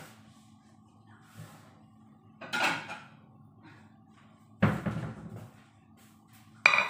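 Kitchen clatter of things being handled and set down: a rattling knock about two and a half seconds in, a heavy thump near five seconds, and near the end a sharp clank with a brief metallic ring. All of it is over a faint steady hum.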